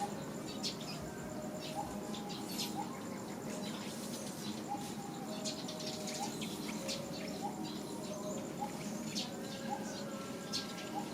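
Short chirping animal calls repeating about once a second, with scattered high clicks and chirps over a steady background hiss.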